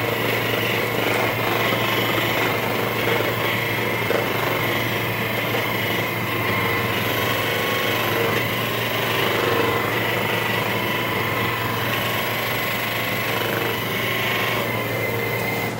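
Handheld electric massager running with a steady motor hum, held against the patient's back.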